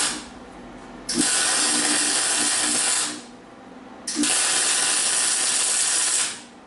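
MIG welder arc sizzling as weld beads are laid on a dirt late model's steel frame rail butt joint: a run that stops just after the start, then two steady runs of about two seconds each, a second apart.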